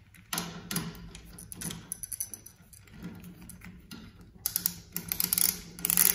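Ratchet wrench clicking in quick runs as it turns the bolt of a home-made threaded rivet nut tool. The clicks are sparse at first and come in denser, louder runs in the second half.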